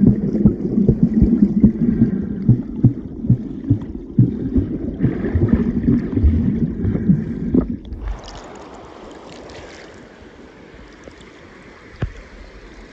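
Wind buffeting the microphone over water sloshing around a canoe, with frequent short knocks. About eight seconds in it cuts suddenly to a quieter, steady rush of flowing river water, with one knock near the end.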